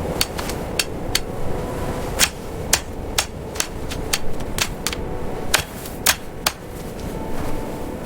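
A series of sharp, hammer-like knocks, about fourteen at irregular spacing, over a steady low rumble.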